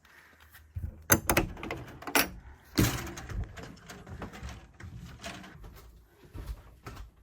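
A few sharp knocks and clunks, the loudest about three seconds in, with quieter rustling and handling noise between them.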